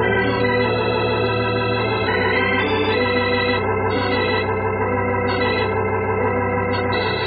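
Organ music bridge between scenes of an old radio drama: sustained chords held at a steady level, with the upper notes shifting several times.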